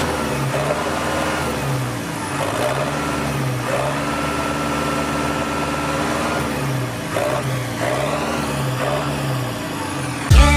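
Farm tractor's diesel engine running, its low note rising and falling repeatedly as the revs change.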